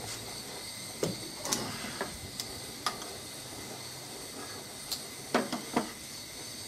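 Portable gas canister stove's burner hissing steadily, with a string of short sharp metal clicks and knocks from pliers and the lead pot being handled, the loudest few about five and a half seconds in.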